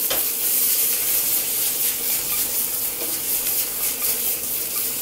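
Chicken drumsticks sizzling and crackling in hot oil as the frying pan is shaken. The juice spatters into the hot oil and flares up in flames, flambéing the chicken without alcohol.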